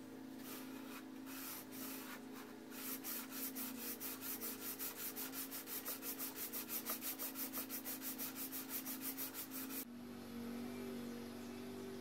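120-grit sandpaper on a flat board rubbed back and forth over the cast iron face of a Yanmar YM240 tractor cylinder head, to flatten the welded head. A few slower strokes lead into quick, even strokes about four a second, which stop suddenly near the end, with a steady low hum under it.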